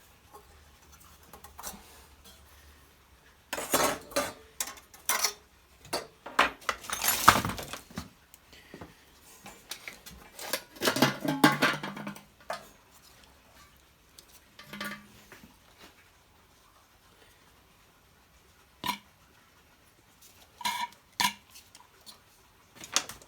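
Metal clinks, taps and knocks of tools and parts being handled on a small generator engine, in irregular clusters with pauses between.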